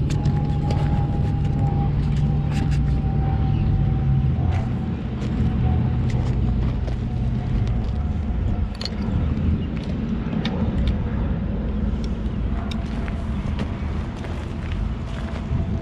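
An engine running steadily, its low hum with a faint higher whine that slowly falls, the hum dropping away after a few seconds. Light clicks and taps sound throughout.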